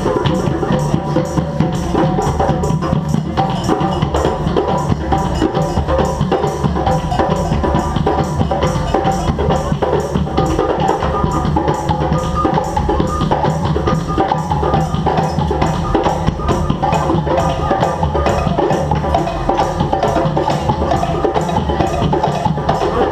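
A street band playing live, with drums and percussion keeping a fast, steady beat without a break.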